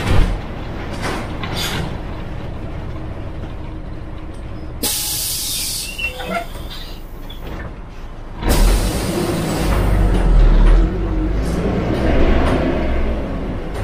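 Yangtze River front-engined city bus: the engine runs at low revs, then about five seconds in a long hiss of compressed air from the bus's air system lasts a few seconds, and after that the engine grows louder as it revs up.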